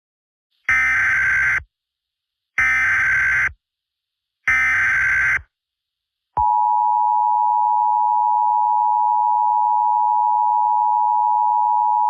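Emergency Alert System tones: three one-second bursts of SAME digital header data, evenly spaced, then about six seconds in the steady two-tone EAS attention signal begins and holds.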